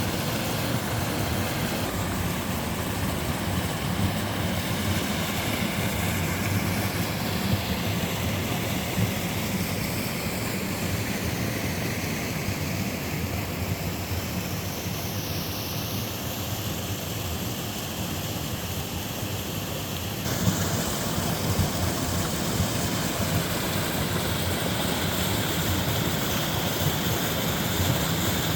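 Mountain stream and waterfall water rushing steadily. The sound changes abruptly about twenty seconds in and turns a little louder and brighter.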